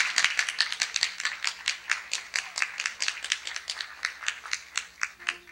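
Audience applauding, dense at first and thinning out near the end into a few scattered claps.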